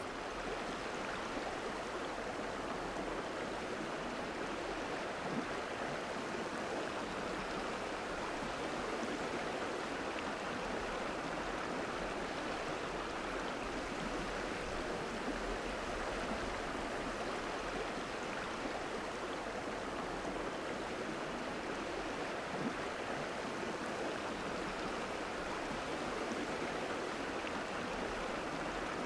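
Flowing water of a stream or river: a steady, even rush that does not change.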